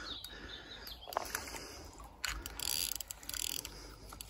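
Fishing reel clicking irregularly while a hooked mirror carp is played, with a denser run of clicks from about two seconds in lasting over a second.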